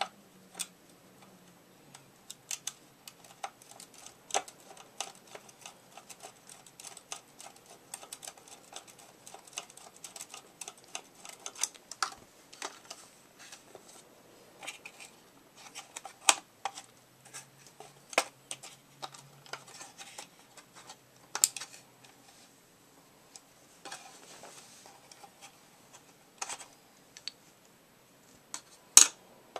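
Irregular clicks, taps and knocks of hard plastic as a Swivel Sweeper's clear plastic base and motor housing are handled and worked apart by hand, with a few louder knocks, one near the end.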